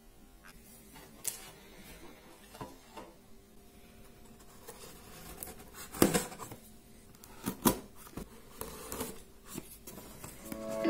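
Hands handling and opening a taped cardboard box: scattered taps, scrapes and rustles of cardboard, the loudest clicks about six seconds in and again about a second and a half later.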